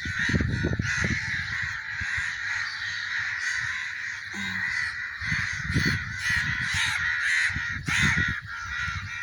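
A large flock of birds calling all at once, a dense unbroken chorus of overlapping calls.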